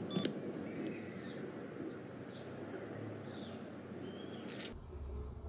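Outdoor ambience from a TV drama's soundtrack: a steady background hiss with small birds chirping briefly several times. It cuts off suddenly near the end.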